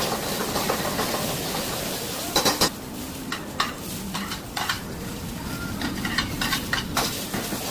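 Fried rice being stir-fried in a hot pan: a steady sizzle with a metal spatula scraping and knocking against the pan, a quick cluster of knocks about two and a half seconds in.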